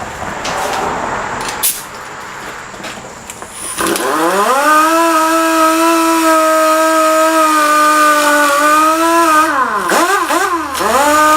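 Handheld grinder motor spins up to a steady high whine about four seconds in, after some clattering and knocks. Near the end its pitch sags three times as it is pressed into the work, cleaning up the wheel hubs.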